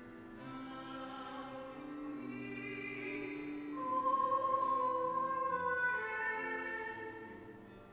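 Slow sacred music at communion: a solo voice in an operatic style singing long, held notes over accompaniment, swelling to a loud high note about halfway through.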